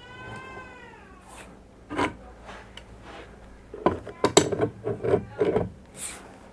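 A pitched squeal lasting about a second, then a single knock, and about four seconds in a quick run of metal clanks and knocks from tools on the steam radiator valve and pipe.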